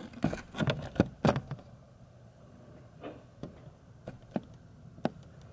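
Handling knocks and clicks from a camera being adjusted and set in place: a cluster of sharp knocks in the first second and a half, then a few separate clicks.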